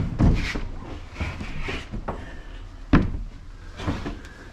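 Home-built 80/20 aluminium truck bed slide being pulled out on its roller bearings: rolling and rubbing with several sharp metallic knocks, the loudest about three seconds in.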